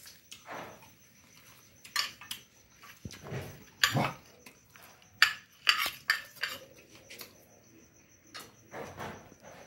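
A metal spoon clinking and scraping against a glass plate in irregular sharp clicks while food is scooped up, with chewing sounds in between.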